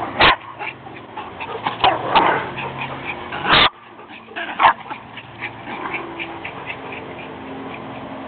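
Chihuahuas squabbling over a squeaky toy: frequent short squeaks and dog whimpering and yipping, with a few louder sharp sounds about a third and halfway through.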